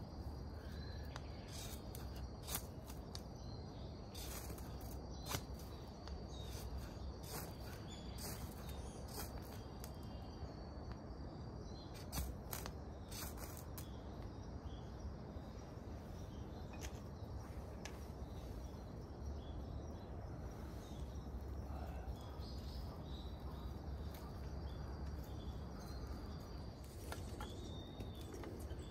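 Ferro rod scraped with a striker to throw sparks onto tinder: a series of short, sharp rasping strikes, most of them in the first half, until the tinder catches. A steady high insect drone runs underneath.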